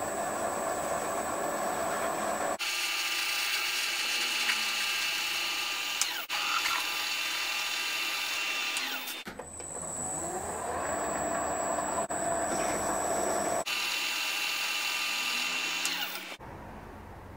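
Small metal lathe turning an aluminium bar, the tool cutting the spinning stock and throwing curly chips while the motor and spindle run steadily. The sound changes abruptly three times as stretches of cutting are cut together, and drops quieter near the end.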